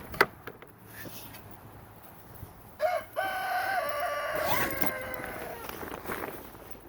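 A rooster crowing once, about three seconds in: a short first note, then one long drawn-out call that sags in pitch at the end. A couple of sharp clicks come just before it, at the very start.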